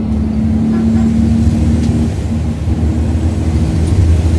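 Mercedes-Benz OC500RF coach's straight-six diesel engine running, heard inside the passenger cabin as a steady low drone, with a higher steady hum over roughly the first half. Near the end the low rumble grows louder.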